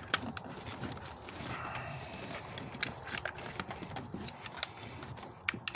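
Scattered small plastic clicks and knocks from hands working an ignition coil's connector clip in the engine bay, irregular and light.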